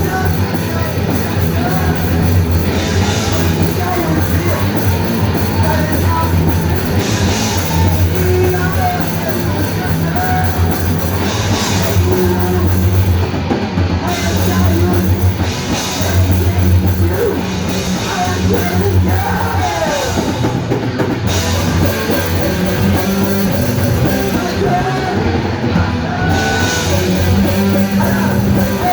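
Rock band playing live: full band with bass and drum kit, cymbal crashes every few seconds.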